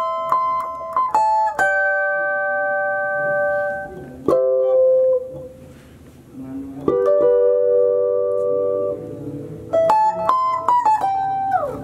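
Clean electric guitar playing a slow lead phrase high on the neck, two notes at a time on the first and second strings, each pair plucked and left to ring. The notes slide down in pitch near the end.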